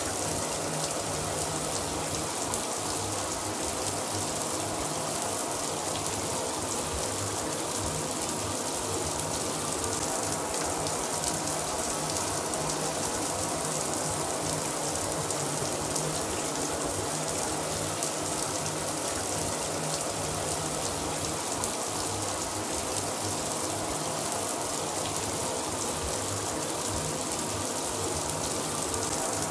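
Shower running steadily, water spraying and splashing with a constant hiss.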